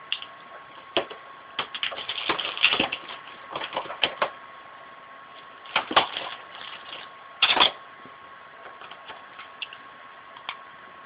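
Makeup palettes and cases being handled and put away: irregular clicks and short clatters, in clusters around two to three seconds in, about six seconds and about seven and a half seconds.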